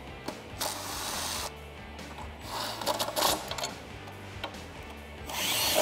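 Cordless impact driver running 13 mm bolts down into the brake-light bracket in three short runs of about a second each, the last the loudest.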